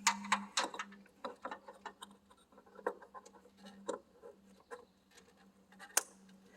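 Irregular clicks and light rattles of hands handling wiring and a plastic electrical connector as it is plugged back in, over a steady low hum. The sharpest click comes near the end.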